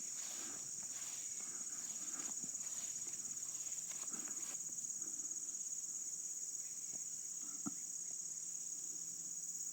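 Steady, high-pitched insect chorus of summer field insects such as crickets, shrilling without a break, with one soft click late on.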